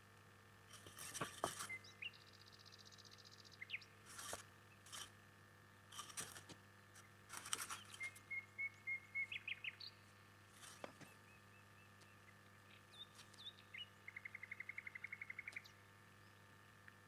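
Faint small-bird calls: scattered short chirps, a run of notes about eight seconds in and a fast trill lasting about a second and a half near the end, over a steady low hum.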